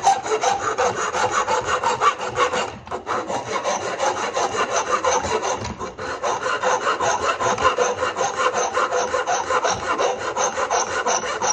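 Flat metal file rasping in quick back-and-forth strokes on the steel dog of a Wolf Creek No. 3 foothold trap, cutting the night-latch notch and clearing paint out of its grooves. The strokes break off briefly about three seconds in and again near six seconds.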